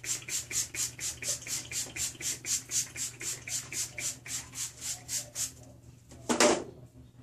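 Pump spray bottle of leave-in conditioner misting onto hair in quick repeated sprays, about four a second, stopping about five seconds in. One brief louder noise follows near the end.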